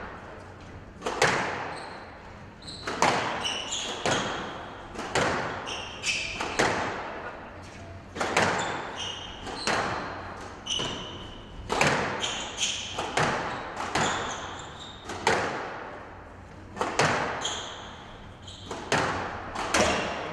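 Squash rally: the ball struck by rackets and hitting the court walls every second or so, each hit echoing. Short shoe squeaks on the court floor come between the hits.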